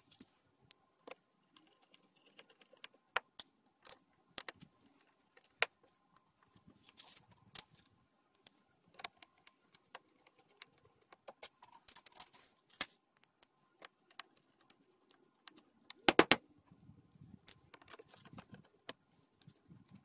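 Scattered light clicks, ticks and taps of tools, screws and plastic covers being handled and refitted on a Predator 3500 generator, with a short cluster of sharper knocks about 16 seconds in.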